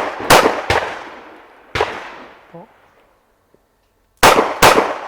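Five pistol shots: a quick double tap, a third shot about a second later, then another quick pair near the end, each ringing out and fading. The rhythm matches a double-tap-then-pause-for-a-precise-third-shot drill.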